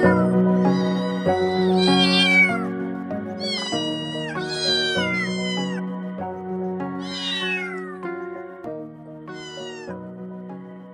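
Young kittens mewing in high, falling cries, about six times, over background music with soft held notes that fades toward the end.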